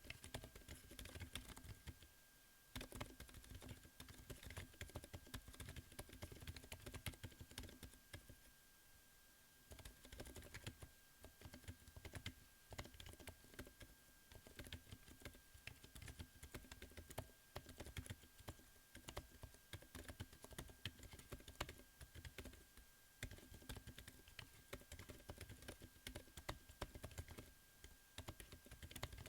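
Typing on a Corne v4 chocolate split keyboard with Lofree x Kailh Hades Silent Linear low-profile switches: a quick, continuous run of faint keystrokes, with short pauses about two seconds in and around nine seconds in. A faint steady hum sits underneath.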